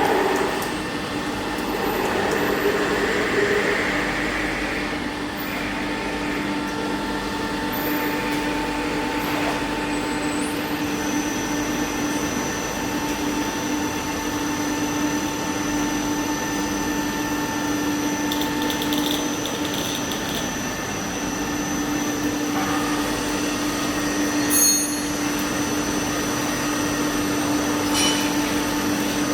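Jewellery hollow pipe making machine running: a steady mechanical hum with several held tones and a high whine, with one sharp click a few seconds before the end.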